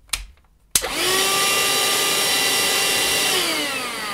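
Parkside cordless handheld vacuum cleaner switched on, powered from a 20 V battery wired in through an adapter. After a click, the motor starts abruptly with a quickly rising whine and runs steadily for about two and a half seconds. It is then switched off and winds down with a falling whine near the end.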